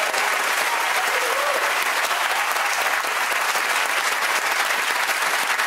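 Studio audience applauding steadily, dense clapping at an even level, rewarding a contestant's accepted answer.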